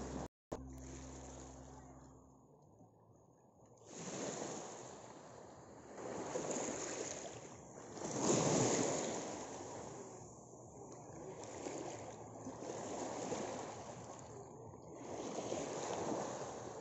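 Sea shore ambience: small waves washing over a pebbly shore, with wind, swelling and easing every few seconds.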